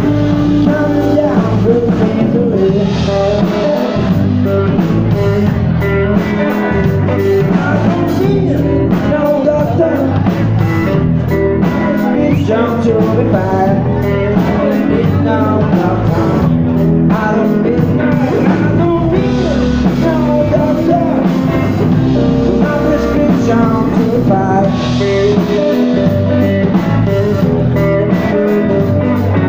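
A rock band playing live: electric guitar, bass guitar and a drum kit, with a man singing lead, loud and continuous.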